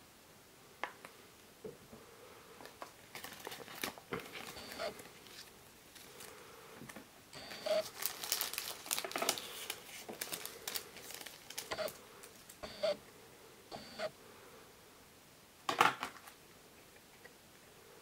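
Clear plastic bag crinkling and paper cards being handled, with scattered light clicks and taps. The crinkling is thickest about eight to eleven seconds in, and one sharp knock near the end is the loudest sound.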